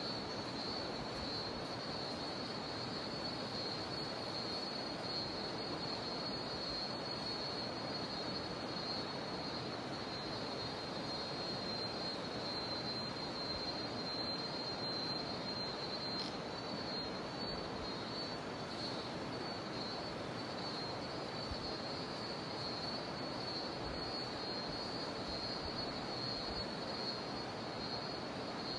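Cicadas droning in a steady high-pitched band over the constant rush of a river.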